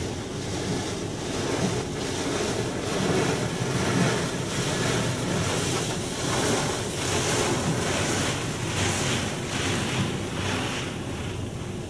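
Pre-soak spray from a D&S 5000 in-bay automatic car wash hissing against the car's windows and body, heard from inside the closed cabin over a low steady rumble. The hiss swells as the spray passes along the car, is strongest in the middle and fades near the end.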